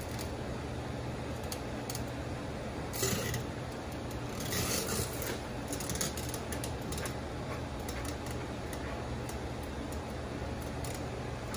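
Grooming comb and brush strokes through a golden retriever's coat: short scratchy swishes at irregular intervals, a little stronger about three and five seconds in. A steady low hum runs underneath.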